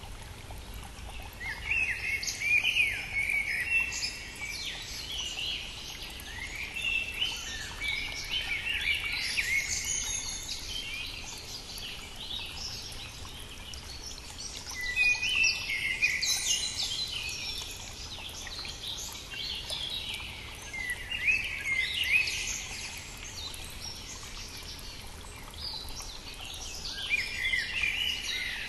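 Songbirds singing in separate phrases of two to three seconds, one about every six seconds, over the steady murmur of a brook.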